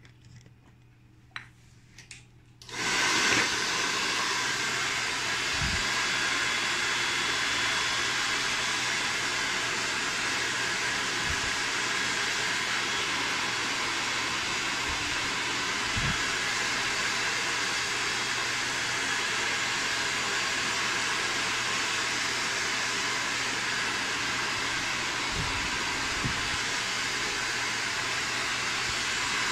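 Handheld hair dryer switched on about three seconds in, then blowing steadily as short hair is blow-dried with a brush.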